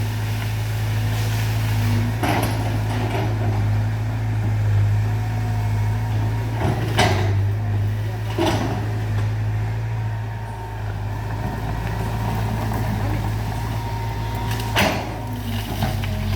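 Caterpillar excavator's diesel engine running steadily under load, with several sharp knocks scattered through as it works.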